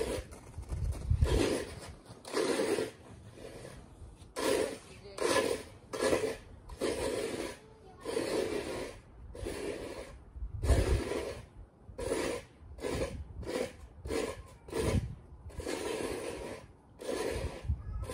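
Snow being dug and scraped: a run of rough, crunching scrapes, one to two a second in an uneven rhythm.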